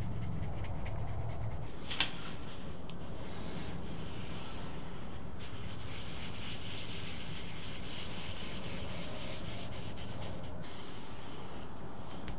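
Hand tools rubbing on leather: a soft, scratchy rubbing that goes on for several seconds, with one sharp tap about two seconds in.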